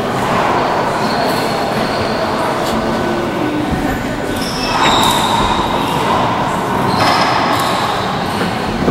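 Steady, loud background din of a large indoor climbing gym hall.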